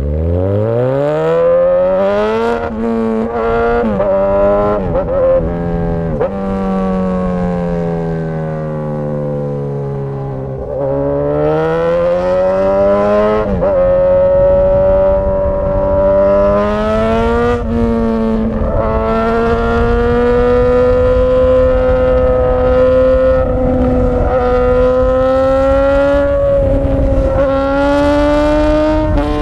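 Straight-piped Suzuki GSX-S1000 inline-four exhaust under way. The revs climb hard from low in the first couple of seconds and drop sharply at a run of quick upshifts. The engine eases off about ten seconds in, pulls again through two more shifts, then holds a steady cruise.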